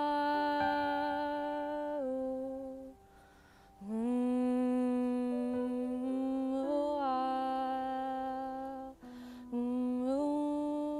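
A woman humming a slow, wordless melody in long held notes that step up and down in pitch, breaking off twice for a breath: about three seconds in and again near the end.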